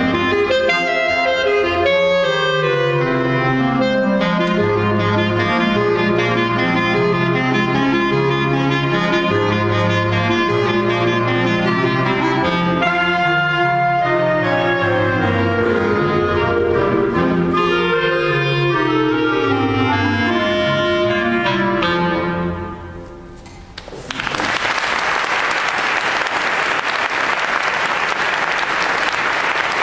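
A clarinet ensemble playing, with low bass notes under running lines. The piece ends with the sound dying away about 22 seconds in, and applause breaks out about two seconds later and continues.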